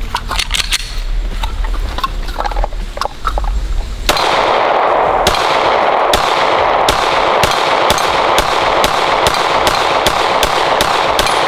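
Glock 19X 9mm pistol fired in a string of about fifteen shots. The first shot comes about four seconds in, and the shots speed up to roughly three a second near the end. Faint handling clicks come before the first shot.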